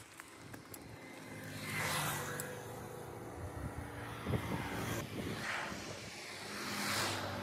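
Road traffic passing by on a highway, three vehicles in turn, each swelling up and fading away.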